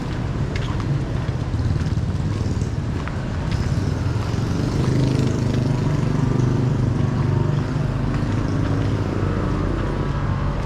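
Street traffic: a motor vehicle's engine running close by, getting louder about halfway through.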